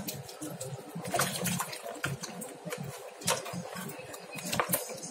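Water sloshing and splashing in a plastic basin as hands rub and turn lemons in it, with irregular small splashes.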